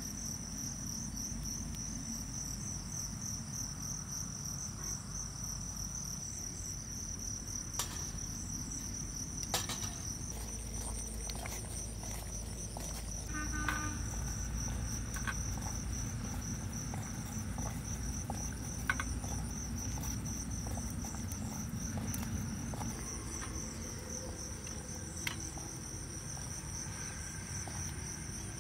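Insects chirring with a steady, finely pulsing high trill. A few light clicks and taps come from a metal spoon scooping avocado into a steel pan.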